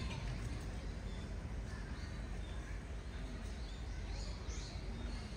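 Steady outdoor background noise with a few short, high bird chirps from about four seconds in and near the end.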